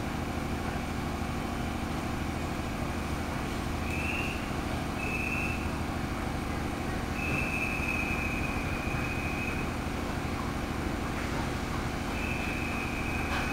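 Running noise of a JR East 211 series electric train heard inside motor car MoHa 211-1, whose traction motors have external cooling fans, pulling away from a station. A steady low hum runs throughout, and a high steady whine comes and goes about four times. The uploader singles out this car for its unusual motor noise.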